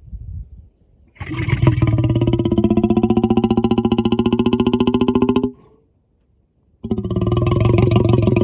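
A hungry stomach growling: two long, loud, buzzing pitched rumbles, each with a rapid fluttering pulse. The first lasts about four seconds, and the second starts near the end.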